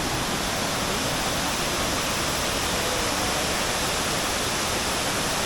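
Steady, loud rushing of water from a large waterfall and its river, an even hiss with no break.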